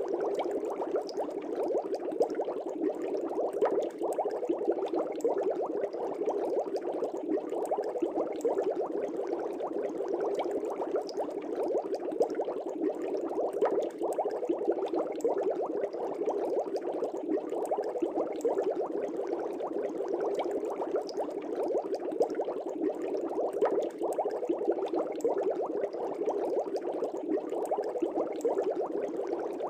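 Fish tank air bubbles bubbling steadily and densely in the water, with no break.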